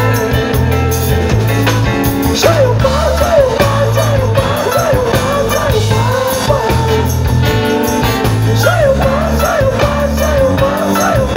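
Live samba-rock band playing a passage without lead vocal: electric bass, drum kit and percussion in a steady groove, with a wavering lead melody line over them in two phrases.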